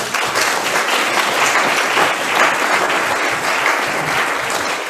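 Audience applauding, breaking out suddenly and holding steady.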